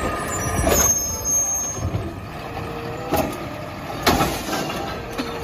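Truck sound, likely a garbage-truck sound effect: a noisy engine rumble with hissing and a few sharp clanks, the strongest about three and four seconds in.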